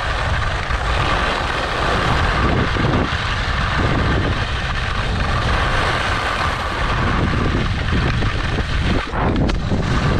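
Skis sliding fast over groomed corduroy snow, a steady scraping rush, with wind buffeting the camera's microphone.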